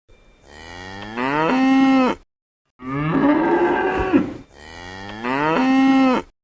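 A cow mooing three times, long calls that rise in pitch and then hold.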